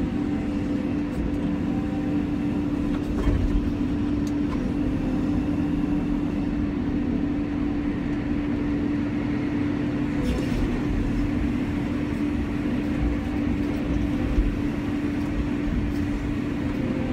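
Cat 320 hydraulic excavator's diesel engine and hydraulics running steadily with a constant hum, heard from inside the operator's cab while it digs, with a few faint knocks.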